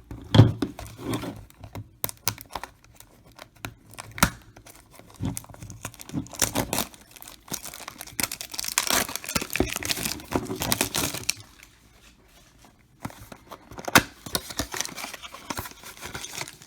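Cardboard box of trading card packs being torn open and the foil-wrapped packs inside crinkling as they are pulled out and handled, in irregular rustles and sharp clicks with a short pause about two-thirds of the way through.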